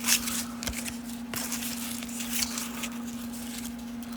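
Trading cards being flipped and slid off a stack in the hand: a run of short, soft scrapes and flicks, over a steady low hum.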